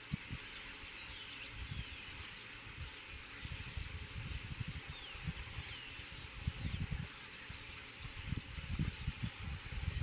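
A large flock of starlings calling together: a dense chorus of many overlapping short high whistles and chirps, with irregular bursts of low rumble, more of them in the second half.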